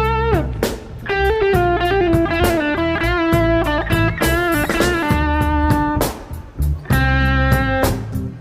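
Background music: an instrumental electric guitar passage with sustained, bending lead notes over a drum beat.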